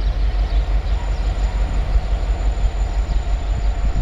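JŽ class 661 diesel locomotive (EMD G16, 16-cylinder two-stroke engine) running as it approaches at the head of a freight train: a steady, deep, rumbling drone.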